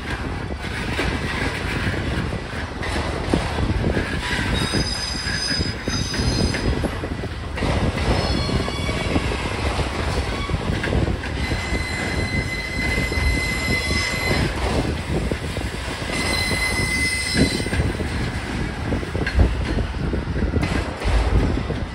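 Freight train of autorack cars rolling past: a steady rumble and clatter of steel wheels on rail. High-pitched wheel squeals come and go three times, around 5 s in, for several seconds from about 8 s, and again around 16 s.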